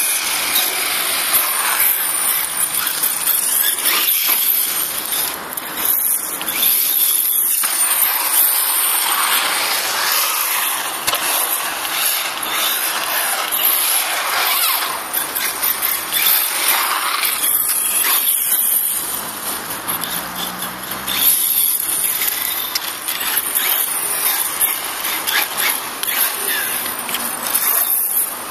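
HSP Brontosaurus Pro brushless RC monster truck being driven over asphalt: a high-pitched motor whine and tyre hiss that rise and fall with the throttle.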